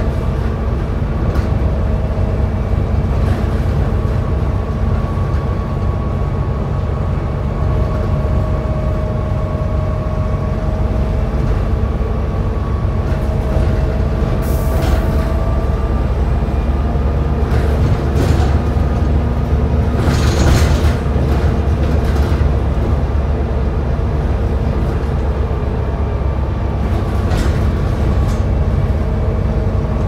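Volvo B7TL double-decker bus running, heard inside the upper deck: a steady low engine and road rumble with a faint whine that slowly rises and falls in pitch. A few short bursts of noise break in, the longest about two-thirds of the way through.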